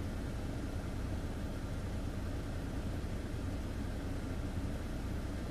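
Semi-truck's diesel engine running with a steady low rumble, heard from inside the cab.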